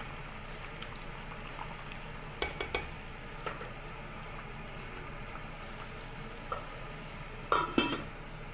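Pork pieces boiling in a stainless steel pot, a steady bubbling hiss, kept at the boil to soften the meat. A utensil knocks against the pot a few times about two and a half seconds in. Near the end the stainless steel lid clatters as it is set back on the pot.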